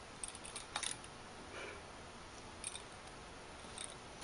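A few soft clicks and taps from a kitten pawing at a pompom toy on a wire stalk: a quick cluster in the first second, then single taps near the middle and near the end, over a faint steady hiss.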